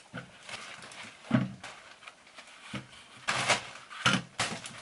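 Rolls of toilet paper being set down and stacked on a wooden shelf: a few soft knocks against the wood with light brushing of paper between them.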